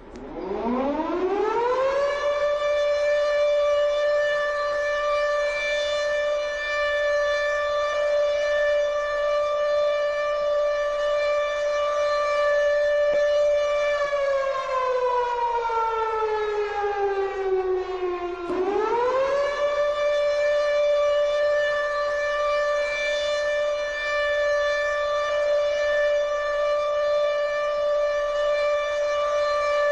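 Civil defense air-raid siren sounding as a nuclear attack warning. It winds up to a steady high tone over about two seconds and holds it. Around the middle it slowly sags in pitch for a few seconds, then winds back up and holds the high tone again.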